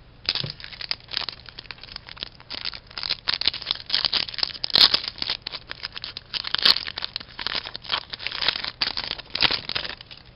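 Foil wrapper of a hockey card pack crinkling and tearing as it is opened by hand: a string of irregular crackly rustles, with two sharper snaps in the middle.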